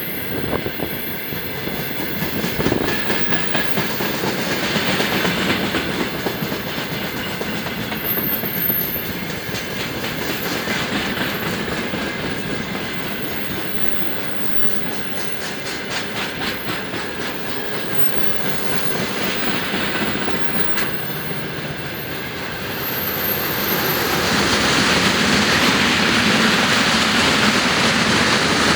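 Loaded railway tank cars of a long freight train rolling past at about 40 km/h, wheels clicking rhythmically over the rail joints with a steady rolling rumble. It grows louder near the end.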